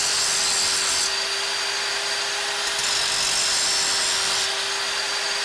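Handheld power tool running steadily with a constant whine, and two stretches of harsher, hissier noise as it bears on the work: one at the start and one from about three to four and a half seconds in.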